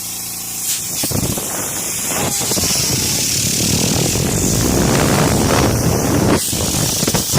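Compressed air from an air-compressor blow gun blasting at a fidget spinner: a loud, steady rushing hiss that starts about a second in and breaks off briefly near the end.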